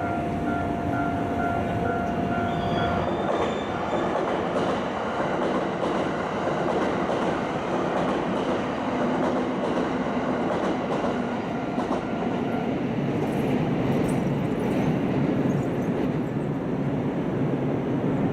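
A train passing over a level crossing, its wheels clattering on the rails in a dense, even noise. A steady high tone stops about three seconds in.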